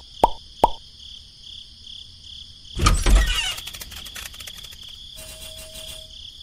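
Edited-in cartoon sound effects: two more short pops in the first second, then a loud sudden hit with a low rumble about three seconds in, and a brief patterned effect with a steady tone near the end.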